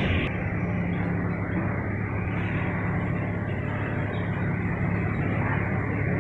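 A steady low drone of a running engine, an even hum that does not rise or fall.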